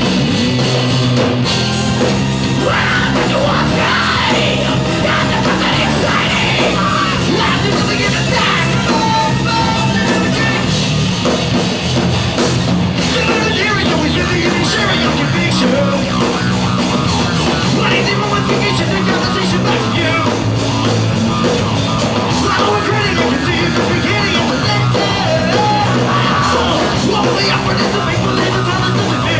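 Live rock band playing loudly: drums, bass and guitar with a singer singing and yelling into a microphone.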